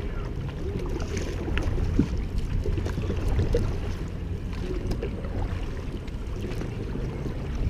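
Wooden canoe paddles dipping and splashing as a group of passengers paddle a large canoe together, over a steady low rumble of wind on the microphone, with a few faint clicks.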